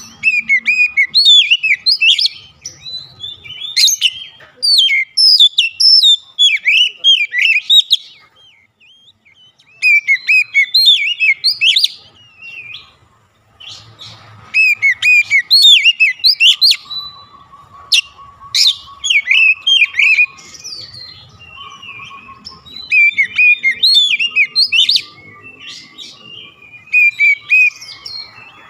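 Oriental magpie-robin singing loudly in rapid runs of varied, high sweeping notes, broken by a few short pauses.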